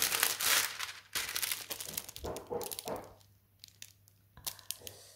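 Clear plastic sleeve crinkling as a diamond painting canvas is handled inside it, loudest in the first second, then dying down to a few soft rustles and clicks after about three seconds.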